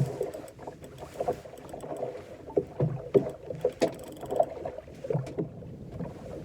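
Irregular knocks and thumps aboard a small fishing boat at sea.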